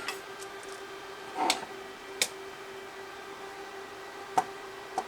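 Four sharp clicks and taps of small hand tools and wire being handled during calculator repair work, over a steady faint hum.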